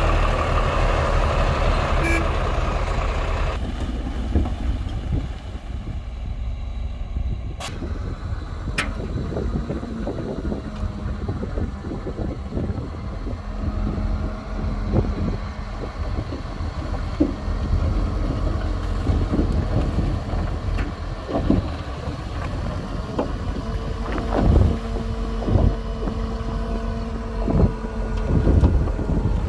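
Heavy diesel earthmoving machinery running under work, a continuous deep engine rumble that is louder for the first few seconds. Two sharp clicks come about eight seconds in, and heavy metal knocks and clanks come several times in the last five seconds.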